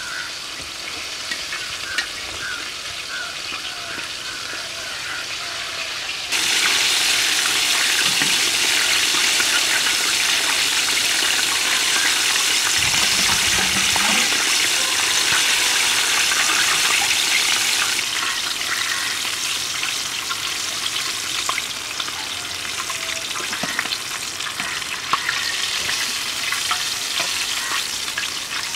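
Batter-coated chicken drumsticks deep-frying in hot oil in an iron wok: a steady crackling sizzle that turns much louder and fuller from about six seconds in until about eighteen seconds, then settles back, with occasional sharp ticks and a few low knocks.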